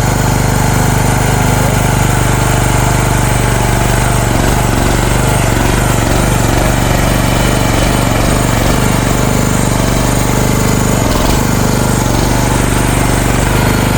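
Small engine of a CFG MX15RX mini excavator running steadily, its note wavering through the middle as the machine's hydraulic controls are worked.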